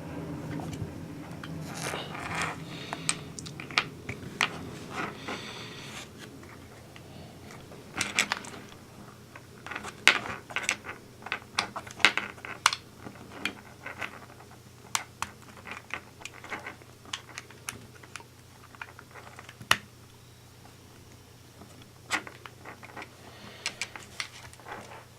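Small plastic and metal parts of an RC car's drivetrain and suspension clicking, tapping and scraping as they are handled and fitted back together by hand. The clicks come irregularly, thickest in a flurry about a third of the way in and sparser after.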